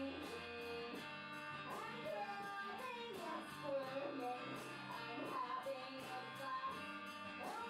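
Live rock band playing: lead vocals sung over electric guitars and drums, with a steady cymbal beat about three to four strokes a second.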